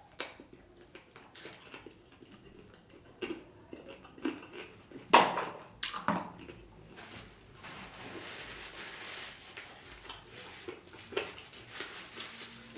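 Close-up eating sounds: biting into and chewing a buffalo chicken wing, with scattered short wet smacks and clicks and two sharper ones about five and six seconds in.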